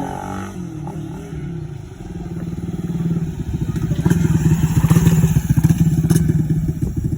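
Suzuki Raider R150 Fi's single-cylinder four-stroke engine revving through an aftermarket stainless canister exhaust with a Vmax elbow. The revs build from about two seconds in and are held high.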